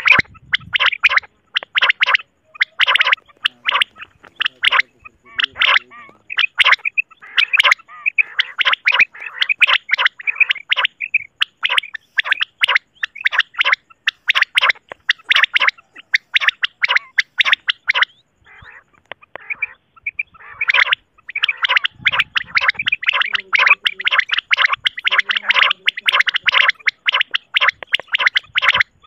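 Common quail calling: a dense run of rapid, overlapping chirping calls that thins briefly about two-thirds of the way through.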